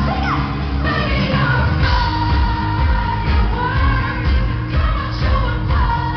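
A woman singing lead over a live pop band with heavy, rhythmic bass, heard from the audience.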